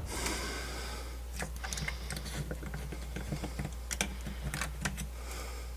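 Light, irregular clicks and taps of small parts and tools being handled while fitting a piece inside a radio's case, one sharper click about four seconds in, over a steady low hum.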